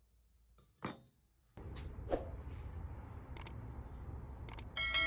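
Workshop handling sounds: a single knock, then a low steady hum starting about a second and a half in with a few light clicks over it, and near the end a metal piece clanging and ringing on.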